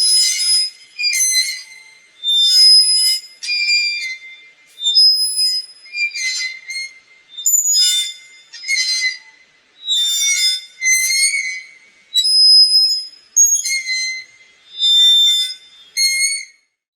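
Swing squeaking as it swings back and forth: a high-pitched squeal about once a second, each squeal wavering in pitch.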